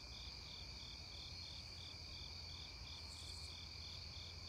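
Crickets and other night insects: a steady high trill with a chirp repeating about three times a second.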